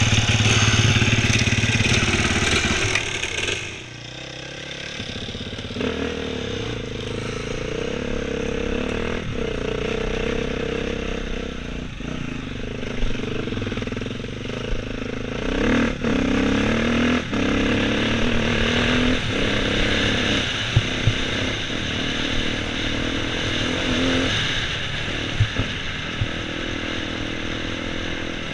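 KTM enduro motorcycle engine running off-road, revving hard for the first few seconds, then dropping to a lower, changing engine speed. Scattered sharp knocks and clatter run through it.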